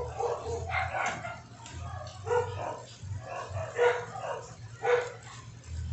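A dog barking and yipping in short calls, about five times, over a steady low hum.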